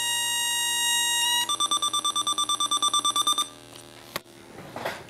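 Small speaker driven by a solar panel that picks up LEDs pulsed by an Arduino Uno, giving electronic square-wave tones: a steady buzzy tone, then a higher tone beeping rapidly about eleven times a second, which stops about three and a half seconds in. A single click follows.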